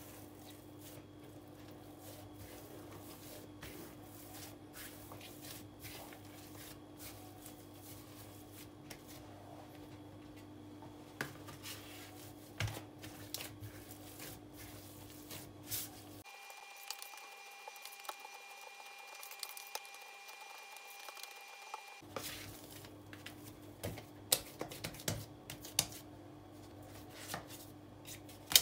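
Hands kneading and pressing a soft, nut-studded cookie dough on a granite countertop: quiet squishing and patting with small taps and knocks against the stone, sharper in the second half, over a steady low hum.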